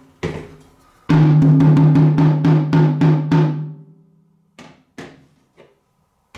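A drum struck in a quick run of about five hits a second, ringing at one steady low pitch, then a few scattered single hits.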